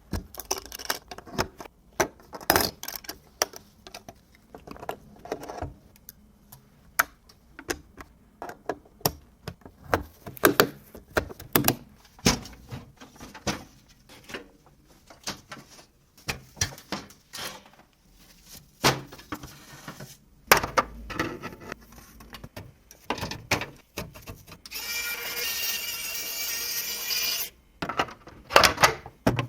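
Parts of a Corsair PC case being handled: a long run of sharp clicks, taps and knocks. Near the end a small power tool whirs for about three seconds.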